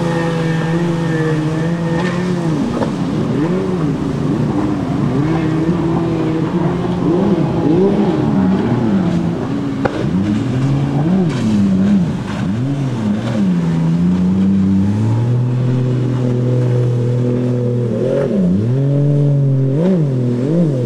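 Jet ski engine running, its pitch swooping up and down again and again, with steadier stretches between the swoops.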